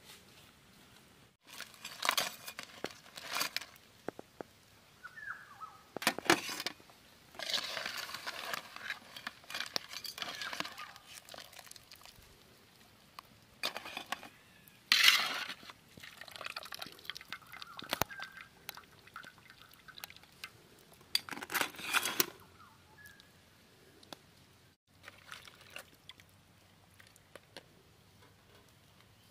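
Irregular metal clatter and splashing as boiled crabs are ladled out of a cast-iron kadai of hot water onto a metal plate, with loud bursts about halfway through and again a little later. Near the end come soft cracks and snaps of crab shell being broken open by hand.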